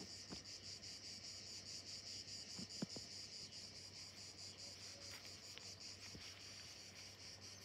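Faint, steady, high-pitched insect chorus in dry summer grass, chirring with a fast even pulse. A few soft footsteps sound under it.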